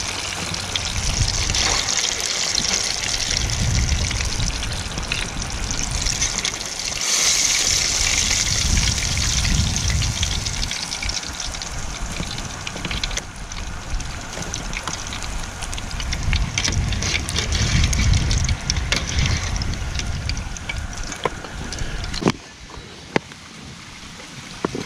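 Fish and French fries deep-frying in hot grease in an outdoor fish cooker: a steady sizzle with a low rumble underneath and a few sharp crackles, dropping off suddenly near the end.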